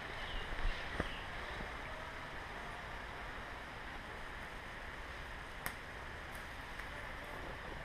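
Steady rushing of wind on the microphone, broken by two single sharp clicks: one about a second in and a louder one about two seconds before the end.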